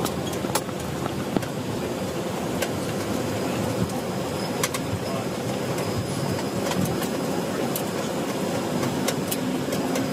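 Steady drone of the Bombardier Dash 8 Q400's PW150A turboprop engines and propellers heard inside the flight deck, with sharp clicks every second or so from cockpit switches and controls. A steady low tone comes in near the end.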